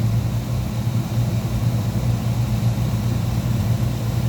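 Beckett oil burner on a Miller furnace running steadily, its motor and flame making a constant low hum with no cutout.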